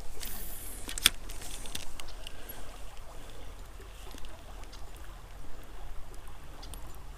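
Shallow stream water trickling softly, with two short sharp sounds in the first second or so.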